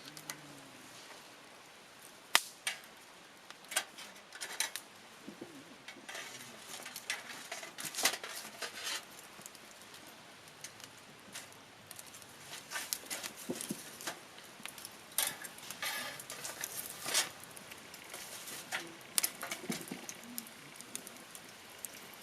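Wood campfire crackling, with irregular sharp pops and snaps over a faint hiss.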